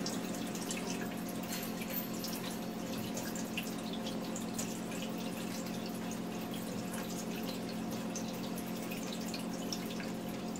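Tap water running and splashing onto a lit LED sign panel in a steel sink, with scattered drips and a steady hum underneath.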